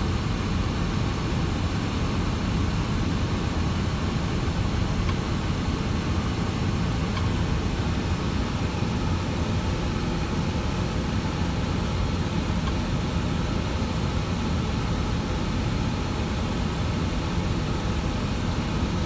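Steady low rumble with an even hiss inside a parked semi-truck's cab: the truck's diesel engine idling with the cab fan running.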